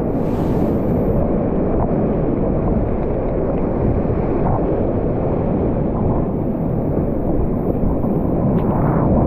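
Loud, steady roar of whitewater rapids on a river at high flow, about 1100 cfs, heard from a kayak in the middle of the rapid.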